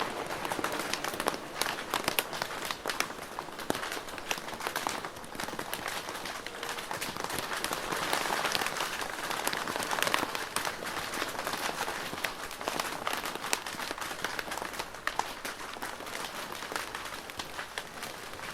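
Rain falling on a plastic roof: a dense patter of drops with many sharp individual hits on the plastic, swelling a little louder around the middle.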